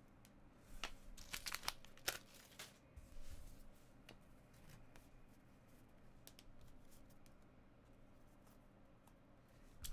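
Trading cards and plastic packaging handled on a card mat: a brief run of soft crinkles and small clicks in the first few seconds, then near silence.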